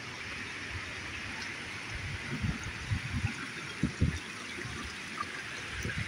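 River water rushing steadily over a low dam and rapids. A few short, dull low thumps come between about two and four seconds in.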